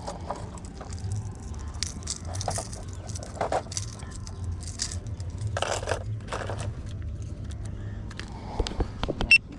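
Fishing tackle being handled: irregular rustling, scraping and small knocks, with a sharp metallic click near the end, over a steady low hum.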